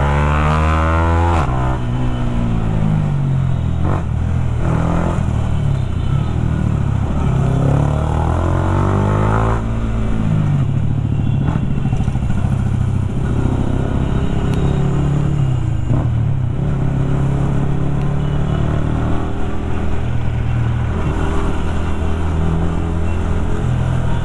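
Sport motorcycle with an aftermarket exhaust, riding in stop-and-go traffic. The engine note climbs and drops back repeatedly as the rider accelerates and backs off. It rises steeply in the first second or so, climbs again until about ten seconds in, then runs steadier with smaller surges.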